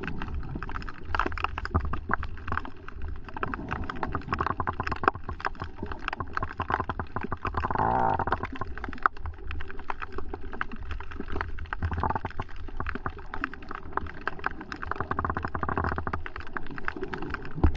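Muffled water sound through a submerged action camera's housing: a steady gurgling and sloshing rumble, dotted with many small clicks and crackles.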